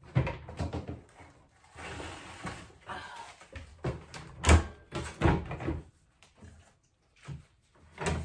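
Kitchen cabinet doors being opened and shut: several knocks and bangs, the loudest about halfway through, with rustling in between.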